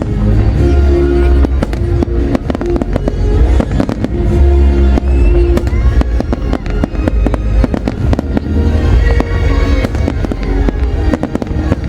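Fireworks display going off continuously: a rapid, dense stream of bangs and crackles with a deep rumble, over loud music.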